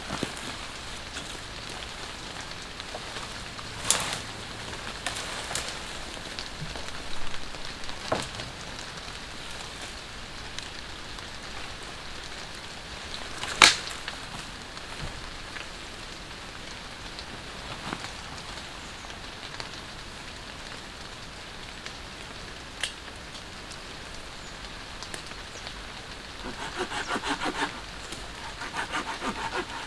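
Steady rain falling on woodland, with a few sharp cracks scattered through it, the loudest about fourteen seconds in. Near the end comes a burst of quick rustling.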